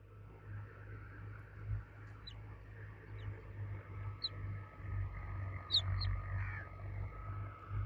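Baby chicks cheeping: a handful of short, high, falling peeps, scattered irregularly over a steady low rumble.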